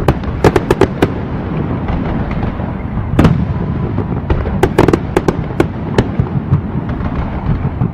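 Fireworks display going off: clusters of sharp bangs about half a second in, around three seconds and between four and six seconds, over a constant low rumble.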